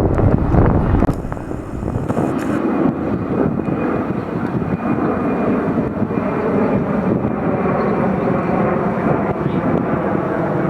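Boeing 767 freighter's twin jet engines running at departure power: a steady dense noise with a faint whine over it. Wind buffets the microphone for about the first second.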